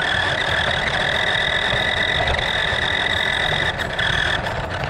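Toy RC car's small electric drive motor and gearbox running, a steady high-pitched whine that cuts off near the end.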